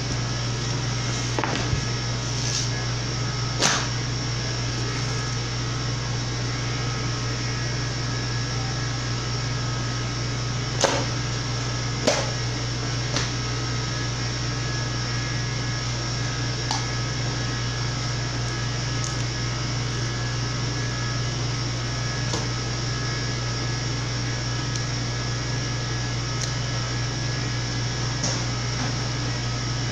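Steady hum of running machinery, with a few short knocks from meat being handled on a stainless steel table, the clearest about four, eleven and twelve seconds in.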